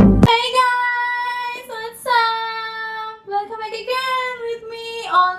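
A woman's high voice singing a few long held notes unaccompanied, in short phrases with brief breaks between them. Electronic music cuts off sharply just before the singing begins.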